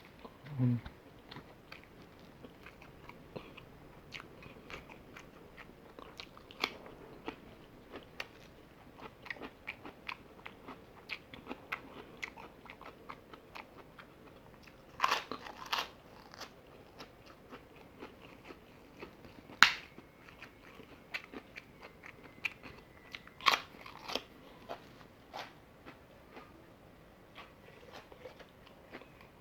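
Fried chicken being bitten and chewed close to the microphone: a steady run of small wet clicks and crunches, with a few louder crunches around the middle.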